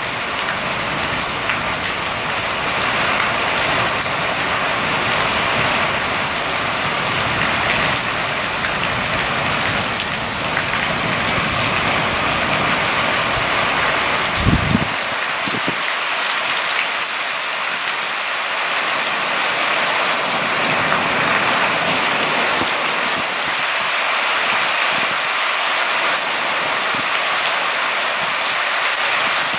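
Heavy thunderstorm rain falling steadily. A low rumble under the rain stops about halfway, just after two short thumps.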